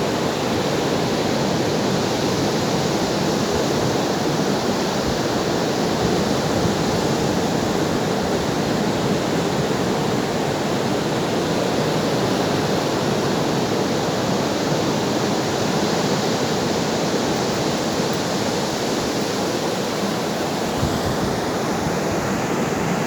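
Ocean surf washing on a shore, a steady rush of water with no distinct swells or breaks standing out.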